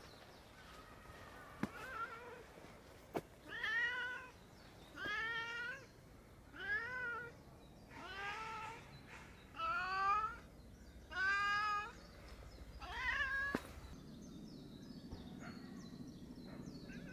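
A domestic cat meowing over and over: a faint call, then seven loud meows about one and a half seconds apart, each rising and then falling in pitch. After the last meow a low steady hum remains.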